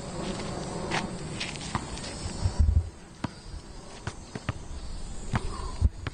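Basketball dribbled on an outdoor asphalt court: a string of sharp bounces roughly every half second, the loudest a heavy low thud a little under three seconds in, over a steady background hiss.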